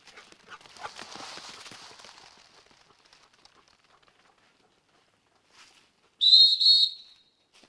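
Bird-dog handler's whistle blown in two short, loud, steady high blasts near the end. Before it, about a second in, a soft rustle.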